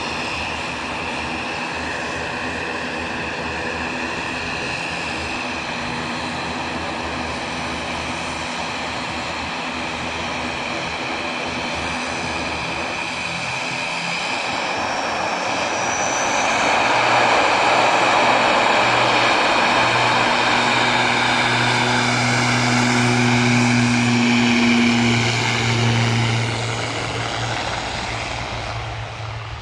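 Twin-turboprop airliner's engines running steadily at low power, then spooling up with a short rising whine about halfway through. The propellers grow loud with a steady low hum as it starts its take-off roll, then fade near the end as it moves off down the runway.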